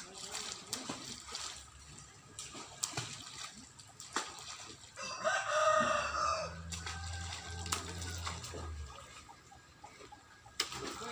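A rooster crowing once, about five seconds in, one call lasting roughly a second and a half. Scattered light clicks and knocks sound around it.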